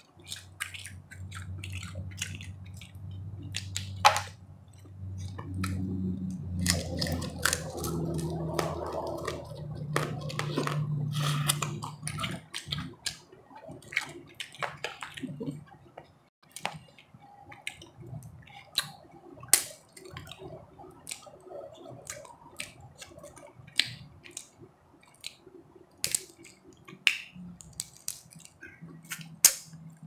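Blue crab legs and shell being cracked and snapped apart by hand close to the microphone, many sharp cracks at irregular intervals, with chewing between them. A low steady hum runs under the first twelve seconds or so.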